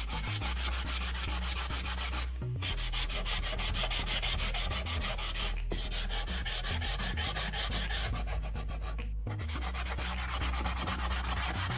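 Coarse sandpaper on a sanding block scrubbed rapidly back and forth over the wet, chalk-painted edges of a wooden cabinet door, wet-sanding through the paint to the bare wood to distress it. The strokes stop briefly about two and a half seconds in and again about nine seconds in.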